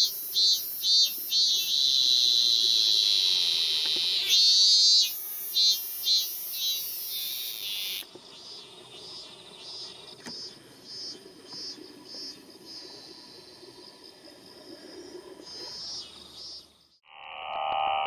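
A male ming-ming cicada (Hyalessa maculaticollis) singing loudly: pulsed notes repeating two to three a second swell into a long held drone, then pulse again. About eight seconds in the song drops suddenly and goes on fainter. Near the end a different, lower steady buzz takes over.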